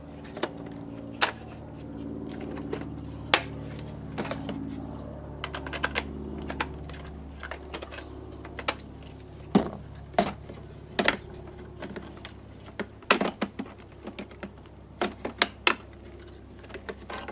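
Irregular clicks and knocks of hard plastic parts: a string trimmer's auxiliary handle being handled, fitted over the metal shaft and shifted to line up for its screw.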